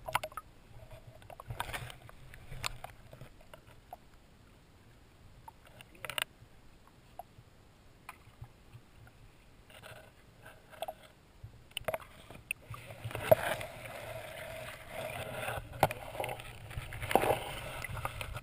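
Muffled underwater sound picked up by a submerged camera in a shallow pond: scattered clicks and knocks, then a denser stretch of sloshing, gurgling water noise in the last five seconds or so.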